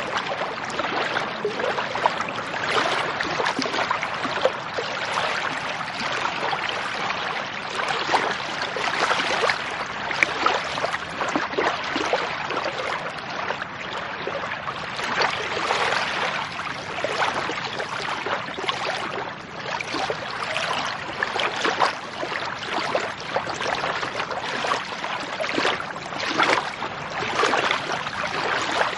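Lake water sloshing and splashing in a continuous churn of small irregular splashes and gurgles that swells and eases from moment to moment.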